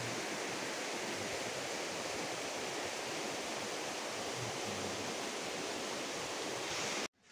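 Rushing water: a steady, even hiss of flowing water that cuts off abruptly near the end.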